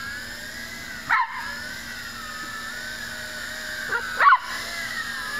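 YiZhan Tarantula X6 hexacopter in flight after its motor replacement, its motors and propellers whining steadily, the pitch wavering slightly. A dog barks twice, about a second in and near the end.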